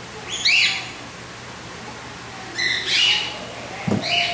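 A bird calling in short arching chirps, in bursts about two seconds apart, with a single dull thump shortly before the end.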